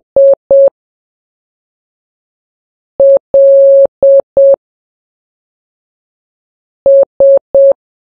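Morse code practice tone, a steady beep near 550 Hz keyed on and off at a slow pace. Two short dots end one letter, then L (dot-dash-dot-dot) is sent about three seconds in and S (three dots) about seven seconds in, with long silent gaps between the letters.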